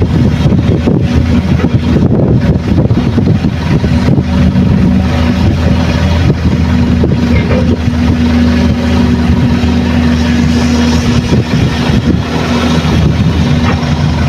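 Heavy diesel engine noise from a Hitachi hydraulic excavator digging and swinging its loaded bucket over a dump truck. It is a loud, steady low hum that rises and falls slightly as the machine works.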